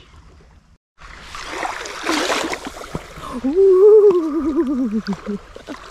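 Small lake waves washing up on a sandy shore, with a louder wash about two seconds in. Over them, a long wavering voice sound that slides down in pitch over about two seconds.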